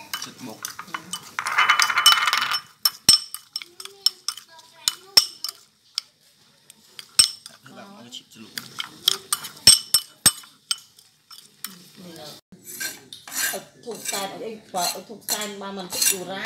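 A metal knife stirring chili dipping sauce in a ceramic bowl, clinking and scraping against the bowl in a series of sharp ticks. A brief louder rasping noise comes about two seconds in.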